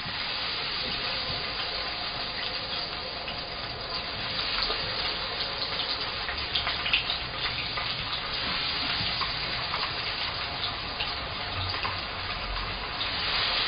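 Battered tempura pieces deep-frying in hot oil in a frying pan: a steady sizzle with scattered light crackles.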